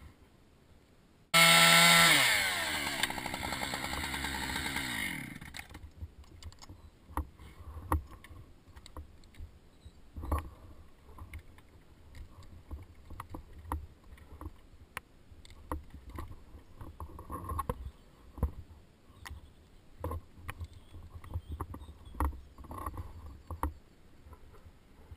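Two-stroke chainsaw revving loudly for a moment, then its pitch falling steadily over a few seconds until it goes quiet. After that, scattered faint knocks and rubbing of gloved hands against the bark of a cut section.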